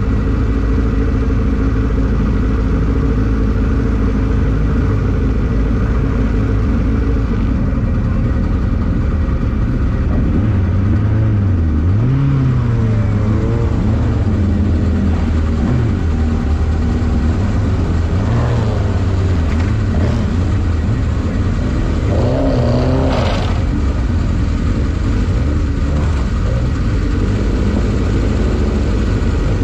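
Engine of a Van Diemen RF01 Formula Ireland single-seater running at fairly steady revs, with a brief dip and recovery in pitch about twelve seconds in. A short wavering higher note cuts through around twenty-three seconds in.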